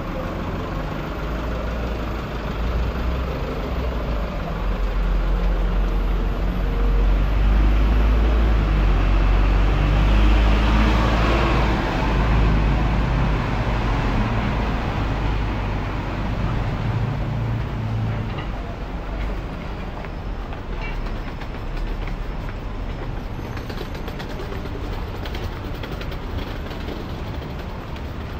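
A Hong Kong double-decker tram passing close by on its rails: a low rumble builds, peaks about ten seconds in with a brief rushing hiss, and fades away over the following several seconds, leaving steady street noise.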